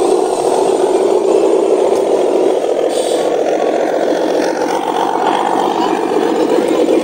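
Electric drive motor and gearbox of a handmade RC miniature truck whirring steadily, with a rattle, as it drives over rough ground.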